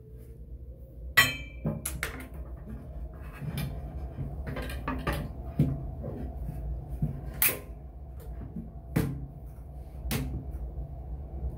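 Irregular clicks, knocks and light rattles as computer hardware is handled and fitted into place, the loudest knock about a second in, over a steady low hum.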